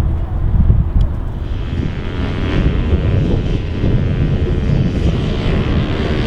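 Pitbike engines running on a motocross track, over a heavy low rumble. A single click comes about a second in, and a brighter engine note builds near the end as a bike comes closer.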